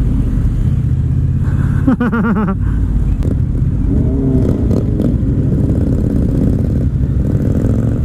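Motorcycle engine, likely the Triumph Bonneville T120's 1200 cc parallel twin through an aftermarket British Customs Sleeper Pro exhaust, running steadily at riding speed with a dense low rumble. A brief wavering high-pitched sound cuts in about two seconds in.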